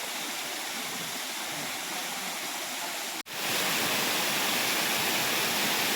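Steady rush of falling water from a monsoon-fed waterfall. Just past the middle there is a sudden short break, after which the rush is louder.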